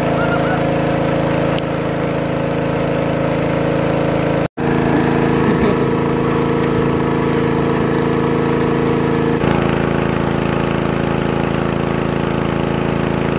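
Small petrol engine of a water pump running steadily at a constant speed, pumping water out of a fish pond.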